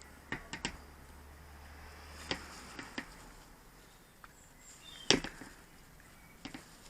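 Scattered light taps and clicks of small tools and materials being handled on a workbench during fibreglass resin work, with three quick ones near the start and the loudest, a sharp knock, about five seconds in.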